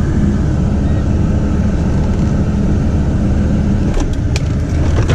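Chevy 2500 HD's Duramax LLY 6.6-litre V8 turbodiesel running at low speed, a steady low rumble. The owner notes an exhaust manifold leak on it. Its upper rumble drops away just before four seconds in, followed by a few short clicks.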